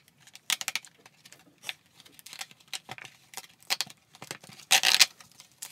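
Plastic packaging of a Pokémon card promo pack crackling and clicking as it is pried open by hand, in short irregular bursts, with a louder crackle about five seconds in.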